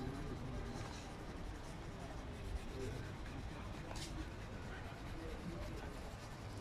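Pencil scratching on a loose sheet of paper as a portrait is sketched and shaded, with a few sharper strokes, over a steady background hiss.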